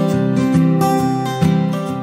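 Background music of strummed acoustic guitar chords, with a fresh strum about one and a half seconds in.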